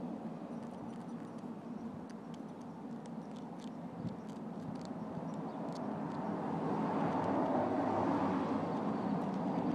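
Road traffic noise: a steady rumble that swells in the second half as a vehicle passes, with faint scattered high clicks in the first half.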